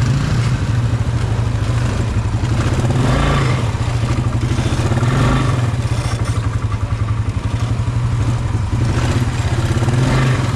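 Quad bike engine running at low speed from the rider's seat, a fast even putter that swells a little with the throttle a few times.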